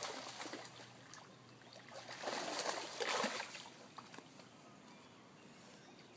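Spawning carp splashing in shallow floodwater: a short burst at the start and a longer, louder one from about two seconds in.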